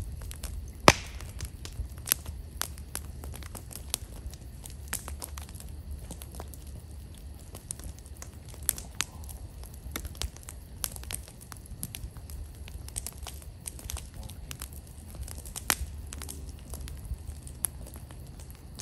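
Wood campfire crackling and popping irregularly, with one sharp, loud pop about a second in, over a low steady rumble.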